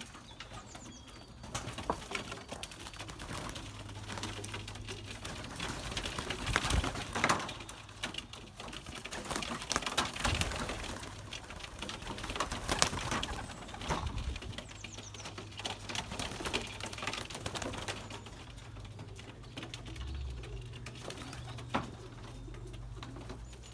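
Young racing pigeons cooing at the loft, with scattered short flaps and rustles of wings.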